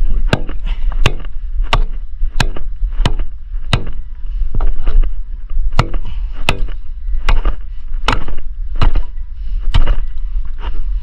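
A hand tool striking over and over in a steady rhythm, about three sharp blows every two seconds, over a low steady rumble.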